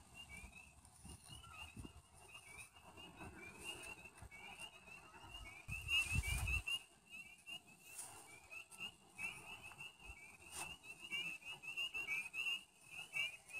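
Faint chorus of short, high chirping calls from small animals, several a second and overlapping, with a soft low rumble about six seconds in.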